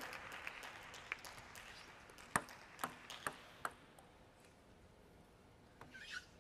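Table tennis ball clicking sharply against the bats and table: one hit about a second in, then four quick hits about half a second apart, before the play stops. A brief faint squeak comes near the end.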